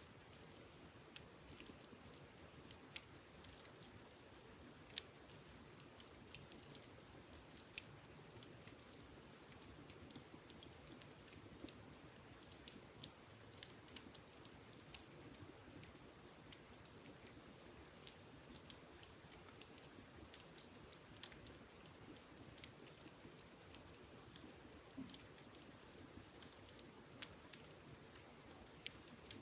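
Wood campfire crackling faintly, with irregular sharp pops and snaps scattered throughout, over a low steady rush of a nearby stream.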